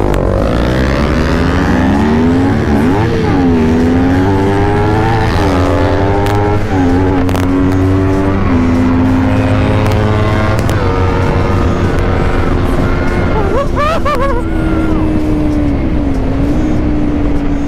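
Sport motorcycle accelerating hard from a standstill. The engine note rises and drops back with each upshift through several gears, then settles to a steady cruising pitch about ten seconds in.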